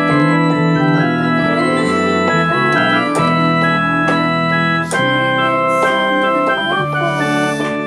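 Digital keyboard playing held, organ-like chords along with a recorded pop song. A wavering sung melody line runs over the chords.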